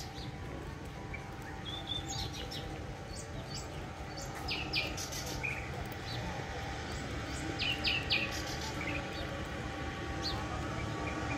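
Small birds chirping in the trees: short high chirps, often in quick pairs, every second or two over a steady low background murmur.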